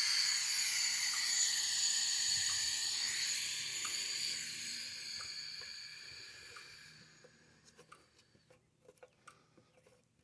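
Compressed air hissing out of a leak in the air compressor's line, a high hiss with a whistling tone that fades away over about seven seconds. Small clicks and taps follow near the end.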